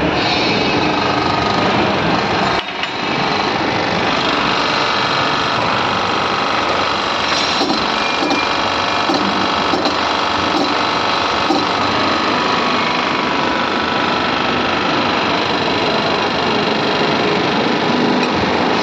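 Hydraulic pump unit running steadily, driving a hydraulic puller clamped on a railway wheelset's axle end for axle box bearing work. The noise dips briefly about two and a half seconds in.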